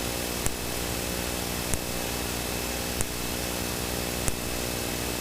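Steady in-flight cockpit noise of a Cessna Citation V business jet: engine and airflow hum with a droning tone, and a light tick about every 1.3 seconds.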